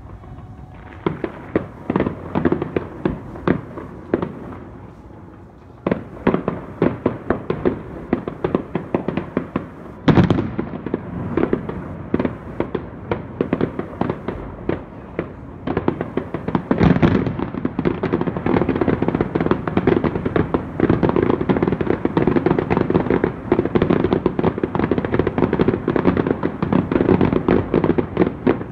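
Fireworks display: rapid crackling pops from crackle shells, with louder bangs about ten seconds in and again around seventeen seconds, after which the crackling becomes dense and continuous.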